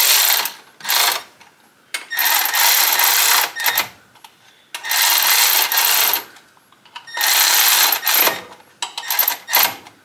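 Ratchet wrench clicking in about six quick runs, each a second or so long with short pauses between, as a bolt on the engine's serpentine belt drive is snugged.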